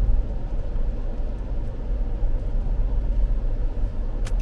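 Steady low rumble of a car's engine and road noise heard from inside the cabin as the car moves, with one sharp click near the end.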